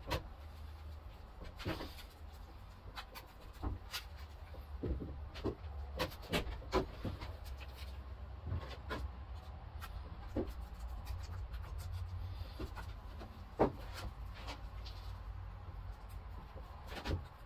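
Irregular light clicks and taps from gloved hands and a resin brush working wet chopped strand mat onto a fiberglass mold, over a steady low hum.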